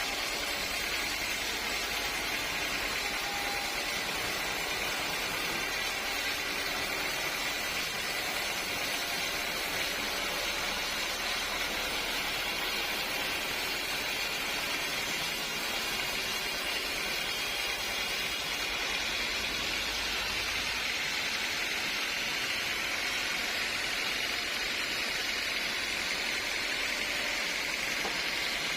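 Sawmill machinery running steadily, an even hiss with no breaks; a low rumble underneath stops about two-thirds of the way through.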